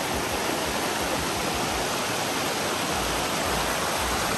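Floodwater rushing steadily, an even, unbroken rush with a little low rumble about three seconds in.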